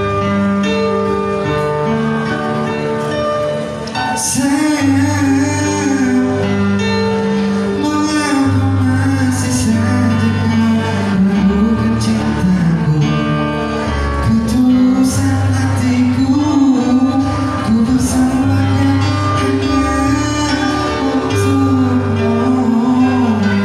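Live music from a slow Indonesian song: sustained bass notes and chords, with a wavering melody line over them from about four seconds in and no words.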